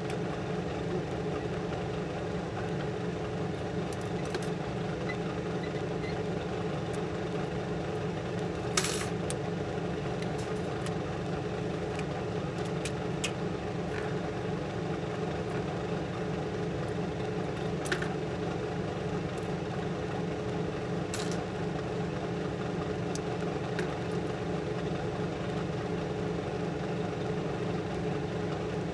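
Steady hum of the clean-room air-flow bench's blower, with a few light clicks of tweezers and tools on the hard drive's metal cover.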